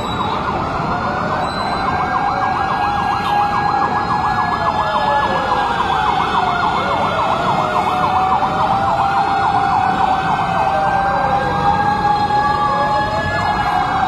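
Several sirens sounding at once: a rapid warbling yelp over a slower wail that rises and falls about once every three seconds.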